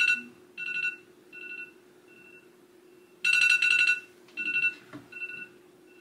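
Phone wake-up alarm ringing: a short, loud, fast-pulsing chime followed by three fainter, fading repeats, the pattern coming round twice. A steady low hum runs underneath.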